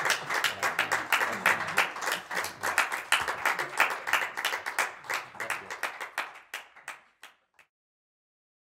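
Audience applauding: a dense patter of clapping that thins out and dies away about seven and a half seconds in.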